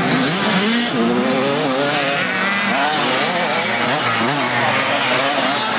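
Several motocross bike engines revving together, their pitch repeatedly rising and falling.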